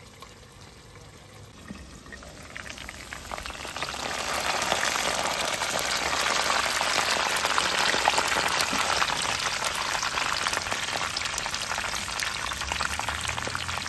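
Pork spare ribs frying in hot oil in a pan: a dense sizzle full of fine crackles that swells up about three seconds in. Before that, a quieter simmer.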